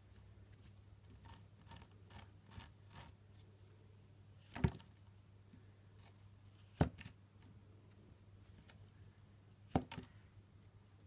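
8-week-old Ragamuffin kitten lapping water from a ceramic bowl: a short run of soft lapping clicks a little over a second in, then three sharp, louder clicks a few seconds apart.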